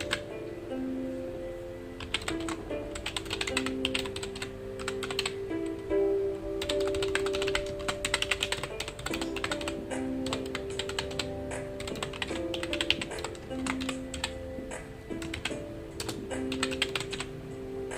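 Typing on a computer keyboard: runs of quick keystroke clicks broken by short pauses, over soft background music of sustained notes.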